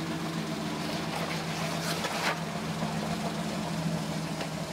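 Toyota FJ40 Land Cruiser's engine running low and steady as the truck crawls slowly over bare rock, with a brief rush of noise about two seconds in.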